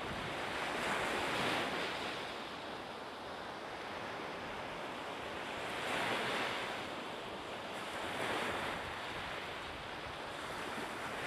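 Sea waves washing in: a steady rushing that swells four times, every two to five seconds.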